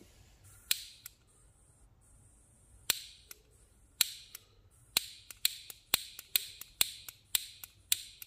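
Handheld piezo spark igniter clicking over and over to light a small folding gas camping stove. The clicks are sharp and separate, a few at first and then about two to three a second. A faint hiss runs for the first two seconds or so.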